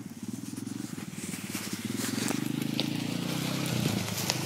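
Two-wheel-drive Honda ATV engine running as the four-wheeler rides off across leaf-covered ground, growing louder about halfway through as it comes closer.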